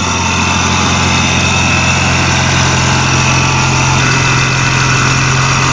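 Dodge Challenger's 3.6-litre V6, freshly fitted with a Ripp supercharger kit, idling steadily with a faint steady high whine over the engine note.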